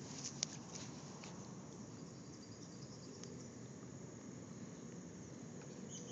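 Faint, steady high-pitched trilling of insects such as crickets in grass, with a few short clicks in the first second, the loudest about half a second in.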